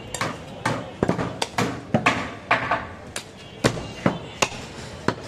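A heavy butcher's knife chopping goat meat on a wooden stump block: a run of sharp knocks, about two a second and unevenly spaced.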